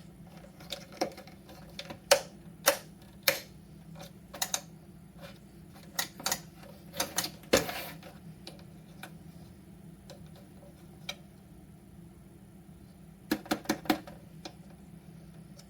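GiveBest 800W wall-outlet space heater running on high: a steady fan hum with a thin hiss of air. Over it come scattered sharp clicks and taps, with a quick run of four about thirteen seconds in.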